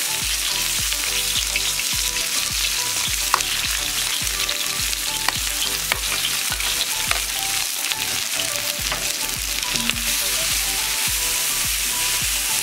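Chopped onions and diced tomato sizzling in hot coconut oil in an iron kadai, a steady hiss full of small crackling pops. A wooden spatula stirs them near the end.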